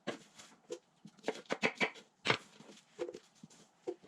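Scattered light clicks and taps, irregular and unevenly spaced, from ingredients and utensils being handled during kitchen prep.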